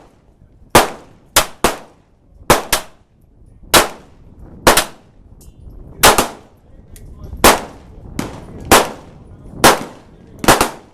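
Gunshots on a shooting range: about a dozen sharp reports at irregular spacing, sometimes two in quick succession, each with a short ringing echo.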